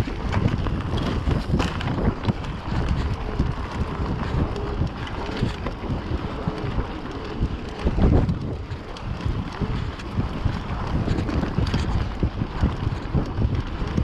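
Wind buffeting the microphone of a handlebar-mounted camera on a mountain bike riding a dirt forest trail, mixed with the rumble and rattle of the bike rolling over the ground. A louder knock comes about eight seconds in.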